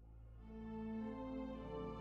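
Instrumental background music with slow, held notes, fading in over the first half second.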